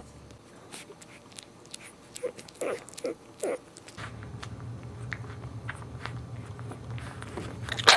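Newborn boxer puppies suckling at their mother: soft wet clicks and smacks, with four short squeaks close together in the first half and a louder short cry right at the end.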